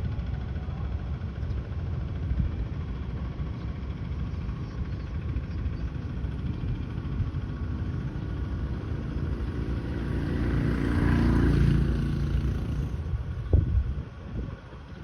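A motor vehicle passing, its engine sound swelling and fading about ten to twelve seconds in, over a steady low rumble, with a few short knocks just after.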